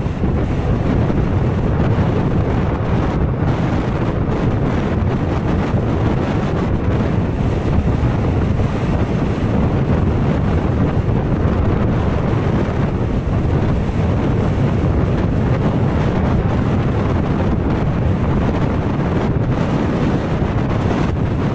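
Wind rushing over the microphone of a camera on a motor scooter riding at about 45–50 km/h, a loud, steady buffeting that covers the engine and road noise.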